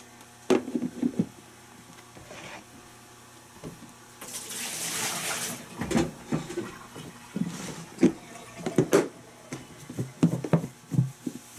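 Chicken pieces being dropped into a plastic tub of seasoned flour with a few knocks, then a brief hiss about four seconds in. After that the lidded tub is shaken by hand, and the pieces thud irregularly against its sides.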